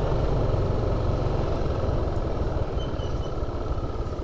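Yamaha Aerox 155 single-cylinder scooter riding along at a steady pace, its engine drone mixed with a steady low rumble of wind on the microphone.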